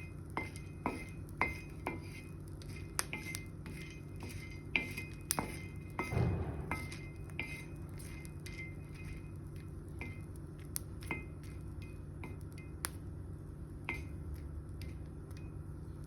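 Kitchen utensils clinking and being stirred: scattered light clinks of spoon on dish, with a brief louder scrape about six seconds in, over a steady low hum.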